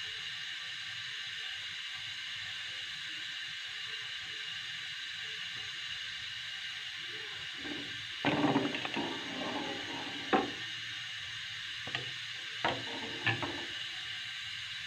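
Steady hiss from a large pan of milk heating on the stove. About eight seconds in, a metal ladle clatters and scrapes against the metal pan as the milk is stirred, followed by a few single sharp knocks of the ladle on the pan.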